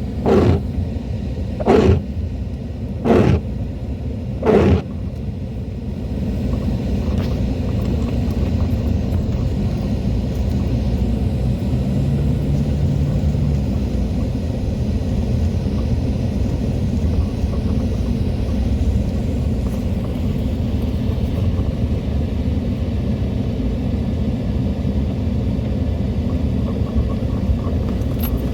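Steady low rumble of a vehicle on the move, growing louder about six seconds in. In the first few seconds a short, sharp sound repeats four times, about a second and a half apart.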